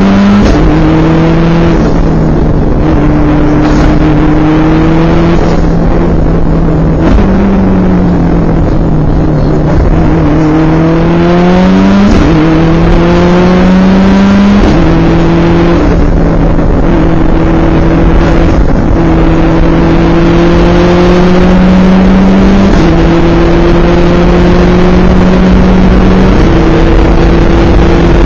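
Turbocharged Subaru WRX flat-four engine pulling hard under near-full throttle, heard from inside the cabin: its note climbs steadily and drops back several times as the driver changes up through the gears from second to sixth, over a steady rush of road and wind noise.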